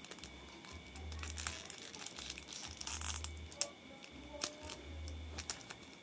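Plastic foil wrappers of trading-card packs crinkling as they are picked up and handled, with a string of short sharp crackles and a longer rustle about halfway through.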